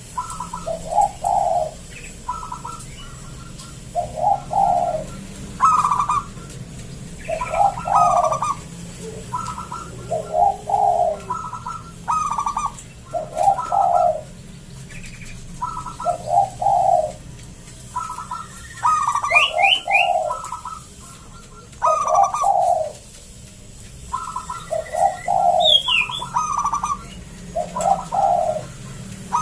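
A local zebra dove (perkutut) singing its cooing song with a deep, full voice. It repeats phrases every couple of seconds: a short higher note, then lower, longer coos. Faint high chirps from other small birds come in now and then.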